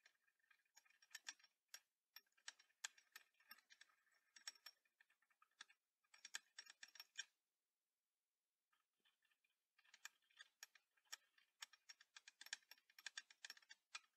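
Faint, quick, irregular clinking of a glass stirring rod against the inside of a glass beaker as sugar is stirred into water to dissolve it, pausing for about two seconds midway.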